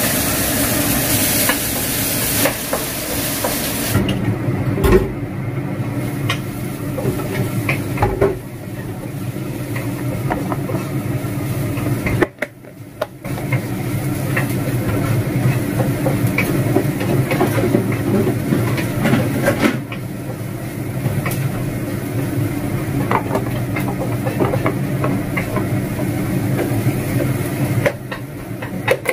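Sliced onions sizzling in a non-stick wok as a wooden spatula stirs them, with a little sugar added and no water so the onions caramelize. After about four seconds the sizzle drops to a quieter frying sound with scattered light knocks.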